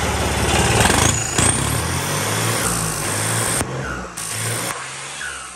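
New Holland 3600 tractor's diesel engine, fitted with a Holset turbocharger, running and revving. It is loudest in the first second or so, and a high turbo whistle rises about a second in.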